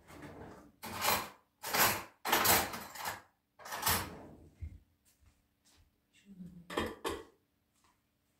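Several short rustling, scuffing noises from someone moving about and handling things, each lasting under a second. Four come close together in the first four seconds and another follows about seven seconds in.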